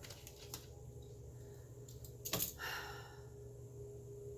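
Tarot cards being handled: a faint click, then a sharper tap and a short rustle about halfway through, over a steady low hum.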